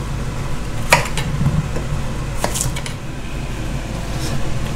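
A kitchen knife knocking a few times on a wooden chopping board while vegetables are cut, the sharpest knocks about a second and two and a half seconds in, over a steady low hum.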